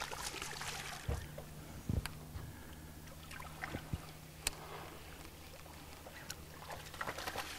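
Water splashing and swirling as a hooked largemouth bass thrashes at the surface while being reeled to the boat, with a few sharp knocks. A faint low hum runs underneath.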